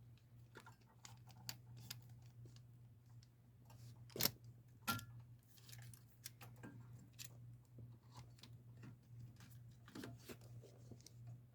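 Faint scattered clicks and rattles of a GFCI receptacle and its wires being handled while the wires are connected to its terminals, with two sharper clicks about four and five seconds in.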